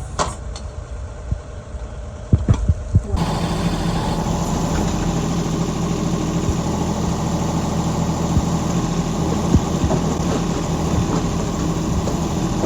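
Engine of a digging and loading machine running steadily, cutting in abruptly about three seconds in after a few knocks and clicks.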